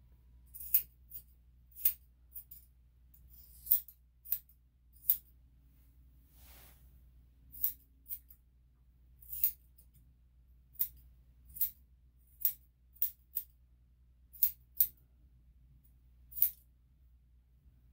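Grooming scissors snipping through a small dog's coat: sharp metallic snips at irregular intervals, about one a second, some in quick pairs.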